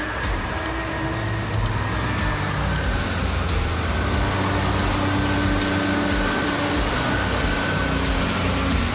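Pacific P16 heavy off-road logging truck's engine running steadily, a continuous low rumble with a thin high whine through most of it.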